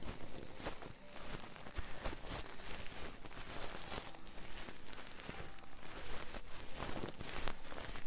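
ASMR ear sounds: fingers or tools working close on a binaural microphone's ear, giving a dense, irregular crackling and rubbing.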